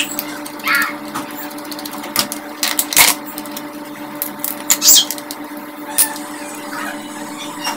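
Taking apart a small plastic portable speaker: a screwdriver working at the screws, then the plastic casing parts clicking and scraping as they are pulled apart, in irregular sharp clicks. A steady low hum runs underneath.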